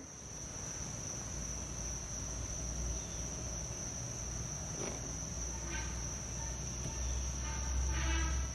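Steady high-pitched chirring of insects over a low rumble, with a faint click about five seconds in and two short squeaky sounds near the end.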